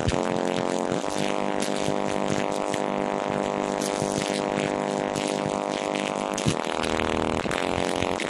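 Ground Zero car subwoofers playing deep bass so loud that the phone's microphone distorts it into a steady, buzzy drone. The note changes about a second in and again near the end.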